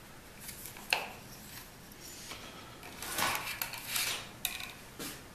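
Light handling noise as segmented plastic Loc-Line hose and wires are moved about: rustling and light clattering, with a sharp click about a second in and another about four and a half seconds in.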